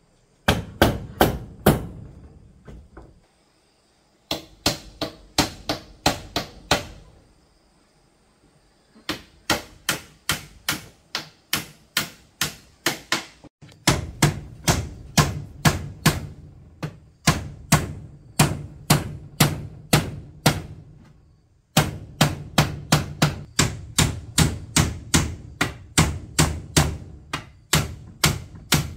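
Hammer blows on wood, evenly paced at about two to three strikes a second, in several runs with short pauses between them.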